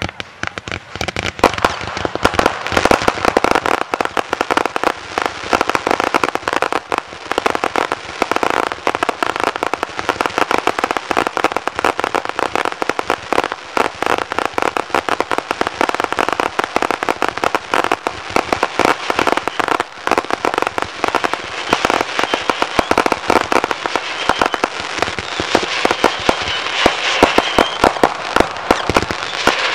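Many consumer (Class C, 1.4G) fireworks firing together in a dense, continuous barrage of rapid pops, thumps and crackles. It starts abruptly and keeps up without a pause.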